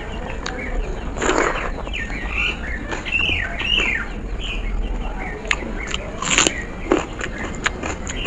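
Wet squelching and smacking of fingers working watery rice and dal in a steel plate, with chewing and lip smacks; the two loudest wet smacks come about a second in and about six seconds in. Small birds chirp repeatedly in the background.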